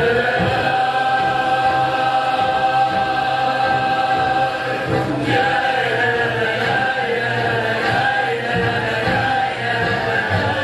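Choral music: a choir singing long held chords, moving to a new chord about halfway through.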